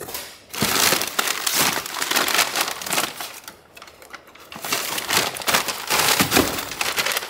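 Plastic packaging bags crinkling and rustling as they are handled and pulled out of a cardboard box, in two spells with a short lull in the middle.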